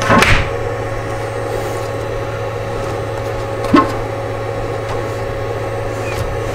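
Steady background hum throughout. About four seconds in, a single light clack as a flexible spring steel build plate is set down onto a magnetic print-bed base.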